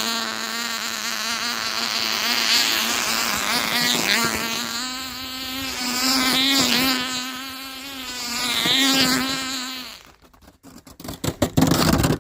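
Tiny Cox two-stroke nitro glow engine of a model airboat running flat out with a high buzz, its pitch wavering and its level swelling and fading as the boat moves about. It cuts out about ten seconds in, followed by a few sharp knocks.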